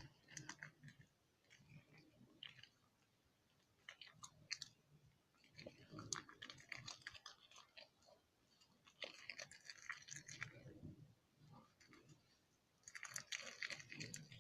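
Faint sticky squishing and crackling of slime being kneaded and stretched by hand, in several short spells with near silence between them.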